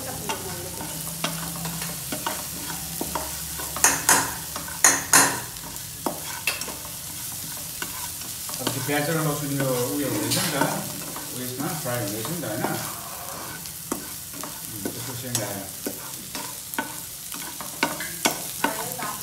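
Curry masala sizzling in a nonstick wok while a spatula stirs and scrapes it, a steady hiss broken by short scraping strokes. The loudest strokes come about four and five seconds in.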